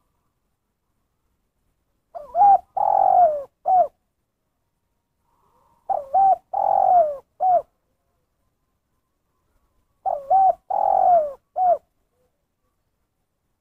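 Spotted dove singing three cooing phrases about four seconds apart. Each has a couple of quick opening coos, a long falling coo and a single short closing 'kuk': the one-kuk ('kuk satu') song type.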